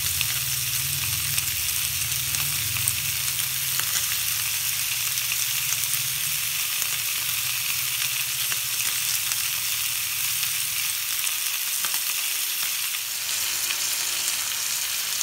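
Whole spice-rubbed fish sizzling on a hot ridged grill pan, a steady sizzle with many small crackles as the fish is grilled near done. A low hum under it fades out about six seconds in.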